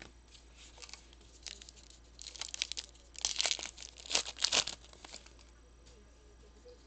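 Wrapper of an Allen & Ginter baseball card pack being torn open and crinkled, a run of ripping and crackling from about two seconds in until about five seconds in.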